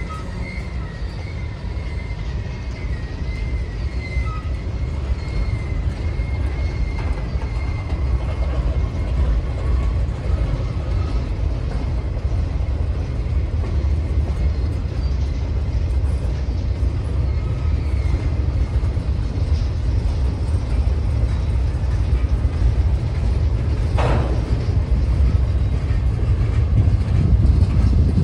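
Slow manifest freight train's cars rolling past: a steady low rumble that grows slightly louder, with a thin wheel squeal in the first few seconds that fades out, and one brief sharp screech near the end.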